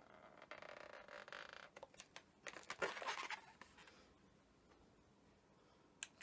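Felt-tip marker rubbing on a latex balloon as the pupil is drawn in. About two seconds in come a few clicks and a short burst of handling rustle, then near silence.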